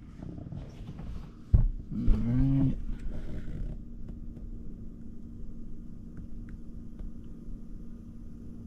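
A single knock, then an electric fuel pump starts humming steadily about two seconds in as it pressurizes the freshly fitted fuel rail and injectors.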